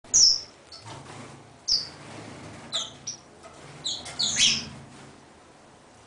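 Small caged finch giving short, high chirps, about eight in all at irregular spacing, some sliding down in pitch; the loudest come at the very start and about four and a half seconds in.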